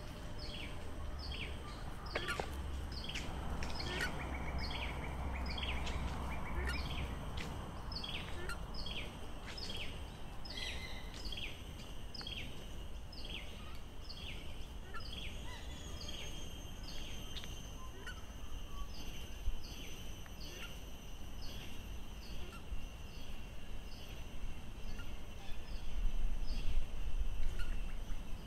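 Outdoor bird ambience: a bird repeats a short falling chirp about twice a second, over a steady high-pitched ringing and other faint bird calls. A low rumble sits underneath for the first several seconds.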